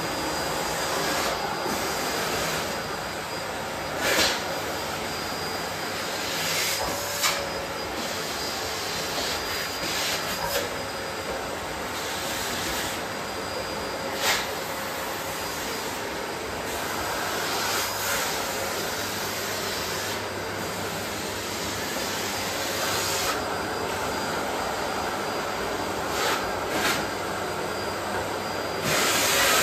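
Bosch BGS21X320 bagless canister vacuum cleaner running steadily, a whine over the rush of suction, as the hose end is worked along the skirting board and door frame. A few short sharp clicks and knocks cut in, about four, seven and fourteen seconds in, and it grows louder near the end.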